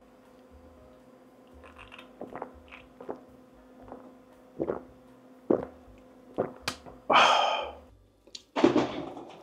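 Close-miked eating sounds: a string of short wet chewing clicks and smacks, then two louder noisy rushes of breath, one about seven seconds in and one near the end, over a faint steady hum.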